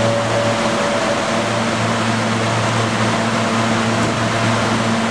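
Subway train pulling slowly into the station and coming to a stop, with a steady low hum from the train's equipment and a higher whine that fades out about a second in.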